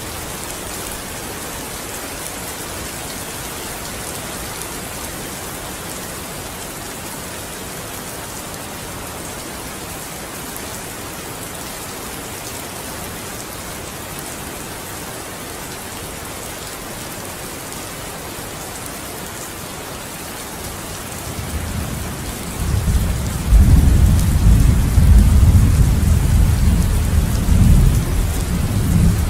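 Steady rain falling, an even hiss. About three-quarters of the way through, a low rumble of thunder builds up and rolls on loudly to the end.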